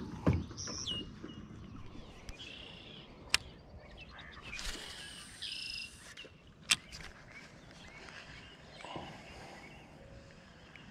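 Faint bird chirps over quiet outdoor ambience. A dull thump comes just after the start, then two sharp clicks about three seconds apart, with a brief hiss between them.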